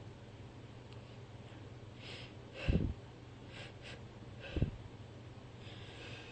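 A woman breathing and sniffling quietly between sneezes in a sneezing fit, with two short, louder breaths about two and a half and four and a half seconds in.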